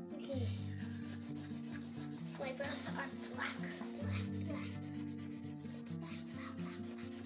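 Felt-tip markers scratching and rubbing on paper as two children colour, in quick uneven strokes, over a simple background music tune.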